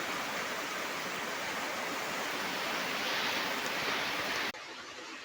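Heavy rain falling, a steady hiss; about four and a half seconds in, it drops suddenly to a quieter hiss.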